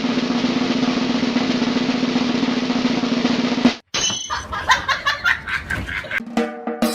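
Fast, steady percussive roll, like a snare drum roll, cut off abruptly about four seconds in; after it come scattered sharp knocks and clicks with short pitched notes.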